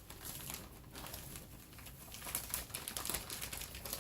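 Packaging being handled and crinkled in irregular, clicky crackles as a compressed foam finger is taken out of its wrapping.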